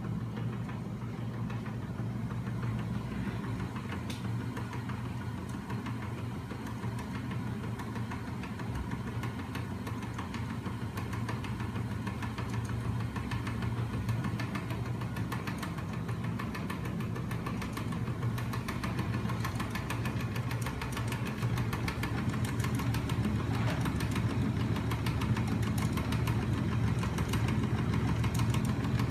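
Homemade linkage-and-flywheel magnet machine running steadily on its electric drive motor: a continuous low hum with a rapid mechanical clatter from its rocking aluminium arms and oscillating magnet stacks, growing a little louder over the second half.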